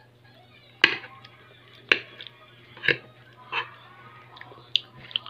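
A metal spoon clinking and scraping against a plate while eating: six short, sharp clicks, roughly one a second, over a faint low hum.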